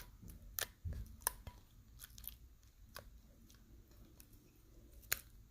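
Clear water slime being squished and handled by hand, giving faint, scattered wet clicks and small pops.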